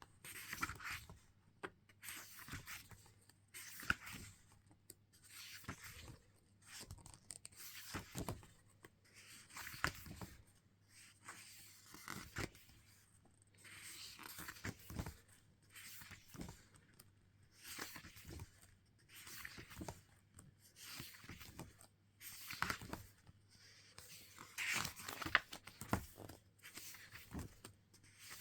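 Paper and packaging of a music album rustling and scraping as it is handled, in irregular bursts every second or two.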